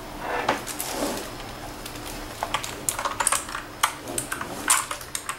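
Redragon Kumara Pro K552W keyboard being handled and turned over: a soft rustle, then a string of short, irregular clicks and clatter from its keycaps and case.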